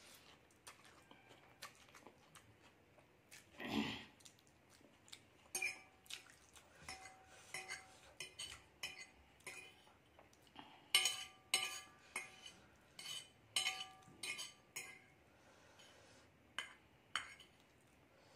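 Metal fork clinking and scraping on a glass plate while twirling noodles: a run of sharp clinks that ring briefly, thickest from about eleven to fifteen seconds in, with one short noisy burst about four seconds in.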